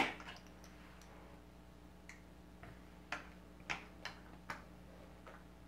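Plastic HeroClix miniatures and their click dials being handled on the table: one sharp click at the start, then about half a dozen softer clicks and taps spread through the rest.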